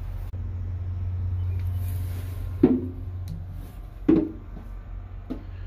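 Footsteps thudding on the metal steps and floor of an old railroad car: two heavy steps about a second and a half apart, then lighter knocks near the end, over a steady low rumble.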